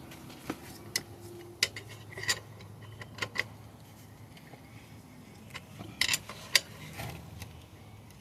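A wrench clinking and tapping against the pit bike's rear axle nut and hub as the nut is tightened: about eight short, sharp metallic clicks at irregular intervals, with two close together a little past the middle.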